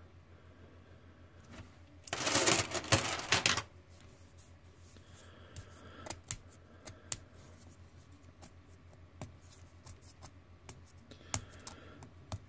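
Metal coins clinking together in a dense burst of about a second and a half, two seconds in. After that come scattered soft clicks and paper rustling as a paper roll of 20-cent coins is handled and its wrapper opened.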